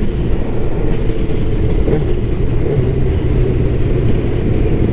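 Yamaha R1's 1000cc inline-four engine running steadily at a light cruise, with rushing air noise on the microphone.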